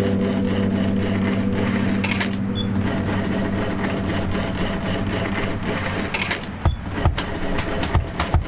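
Background music: a held low buzzing synth note over a fast, even ticking beat. The held note fades about six seconds in, and regular drum thumps take over.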